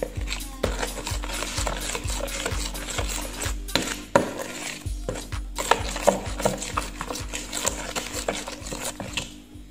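Metal spoon stirring a thick, wet mix of blended limes and sugar in a bowl, scraping against the sides in a quick, even rhythm, with one sharper knock about four seconds in.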